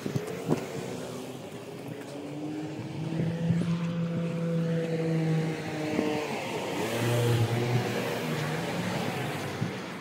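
Motor vehicle engine running, growing louder to a peak about seven seconds in, where its tone drops in pitch, then fading.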